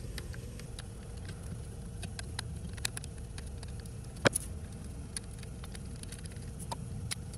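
Scattered small metal clicks and ticks of a screwdriver working the terminal screws on a pool pump motor's wiring board, with one sharper click about four seconds in, over a steady low background hum.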